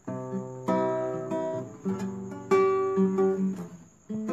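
Acoustic guitar played alone: about five chords, each struck and left to ring out, with a short drop near the end before the next chord comes in.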